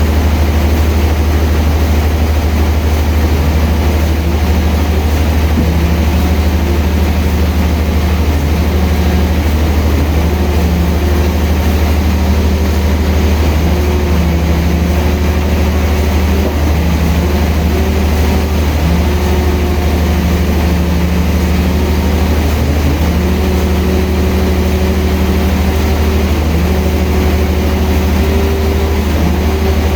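A sawmill's engine running steadily with a deep drone, its pitch wavering slightly up and down every few seconds.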